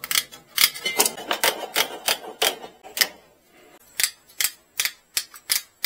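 Hand tin snips cutting through wire mesh screen, a sharp snip as each wire strand is cut, about two or three a second, with a pause of about a second midway.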